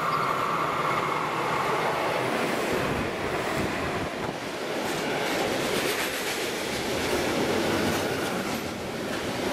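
A long freight train of hopper wagons, hauled by a red electric locomotive, passing close by at speed. The steel wheels on the rails make a continuous rolling noise with a clickety-clack clatter. A high steady tone fades out within the first second.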